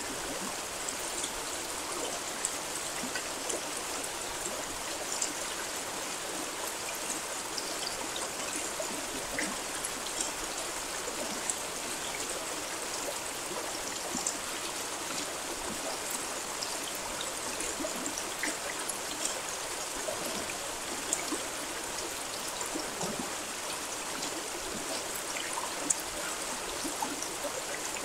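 Steady rain: an even hiss with scattered louder drops tapping through it.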